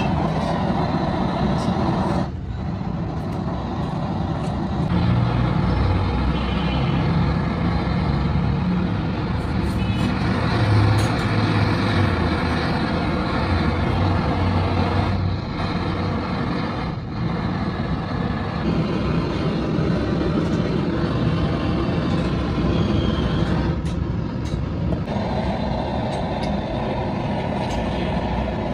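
Gas torch burning with a steady rushing noise as it heats a cast iron cylinder liner and melts a filler rod onto it. The noise dips briefly a couple of times.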